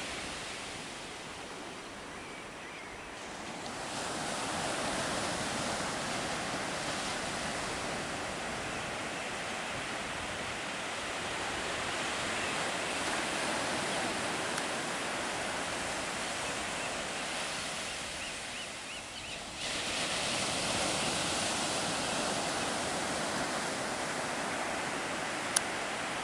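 Ocean surf breaking and washing up a sandy beach, a steady rush that swells and eases, softer at first and louder again about three-quarters through. A single sharp click near the end.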